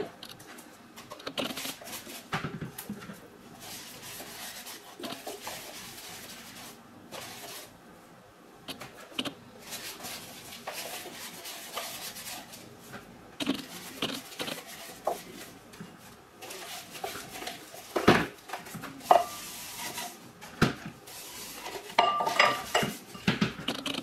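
A sponge wet with hydroperite (hydrogen peroxide) solution rubbing and dabbing over the inside of a hard plastic funnel, with frequent small clicks and clinks of plastic and a glass bowl being handled. A few sharper knocks come near the end.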